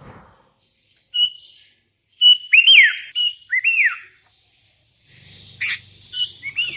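Sooty-headed bulbul singing in short whistled phrases, each a held note breaking into quick rising and falling notes. The loudest phrase comes about two and a half seconds in, and another comes near the end. From about five seconds a low hum and hiss come in, with a short noisy burst.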